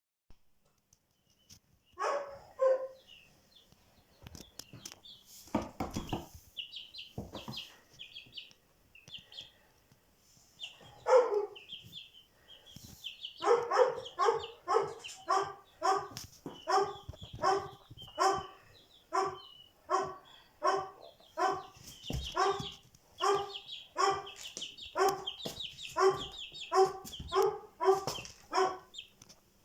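An animal barking: a few single barks, then from about halfway through a steady run of barks at about two a second. Small birds chirp high above it.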